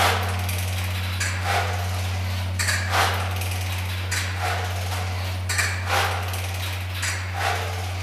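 Swinging bronze church bells of Trier Cathedral's 1951 Otto peal, heard from inside the bell chamber. Clapper strikes ring out irregularly every half second to second and a half over the bells' steady deep hum.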